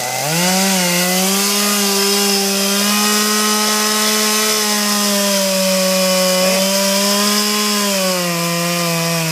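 Two-stroke chainsaw revving up and held at high throttle as it cuts into a tree trunk, its pitch sagging slightly about eight seconds in as the chain bogs in the wood.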